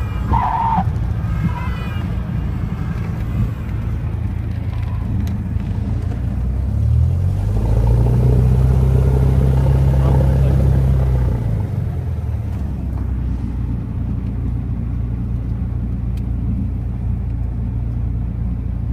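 Cessna 172's piston engine droning steadily, heard inside the cabin. About seven seconds in its note rises and gets louder, holds for roughly four seconds, then drops back to the lower drone.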